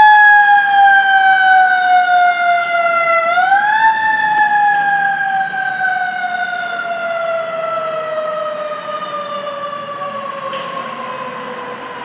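Fire engine's mechanical siren, wound up to full pitch and then slowly coasting down, given one brief spin-up about three seconds in before winding down again. It fades as the engine drives away.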